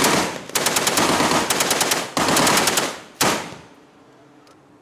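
Belt-fed machine gun firing several rapid bursts of automatic fire with brief pauses between them, ending with a short burst a little after three seconds in.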